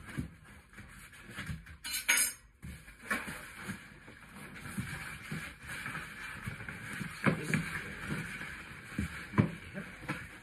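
Handling of a large cardboard box and its packing: irregular knocks and bumps, with a short loud scrape or rustle about two seconds in and sharper knocks later.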